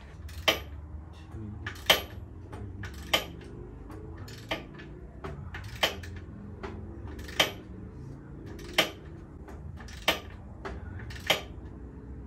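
Ratchet wrench clicking as the rear-axle belt adjuster bolts of a Harley-Davidson Softail are backed off stroke by stroke. There is a sharp metallic click about every second and a quarter, with fainter ticks between, over a low steady hum. The bolts are being loosened so the rear wheel can move back for belt alignment.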